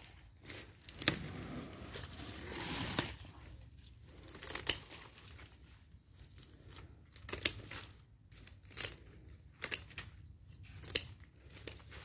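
Hand pruning shears snipping through begonia stems, about seven sharp snips, one every second or two, with rustling of the leaves early on as the plants are handled.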